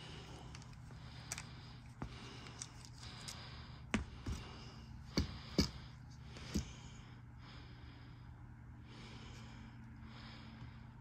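A back scratcher rubbing over a cat's fur on a leather chair: faint scratching and rustling, with a handful of sharp taps between about four and seven seconds in, over a steady low hum.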